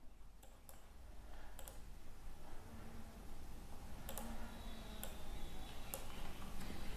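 Computer mouse clicking, about five faint separate clicks spread over several seconds, over a low room hum.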